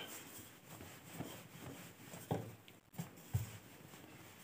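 Faint handling sounds of dough being pressed flat and rolled out with a rolling pin on a floured marble counter: light rubbing, with a few soft knocks in the second half.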